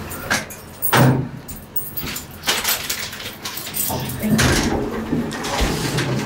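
Elevator's sliding doors and car clunking, with a sharp knock about a second in and several further clunks.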